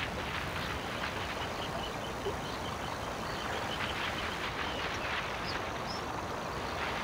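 Steady rushing outdoor background noise, with a faint, quick high-pitched trill about two and a half seconds in.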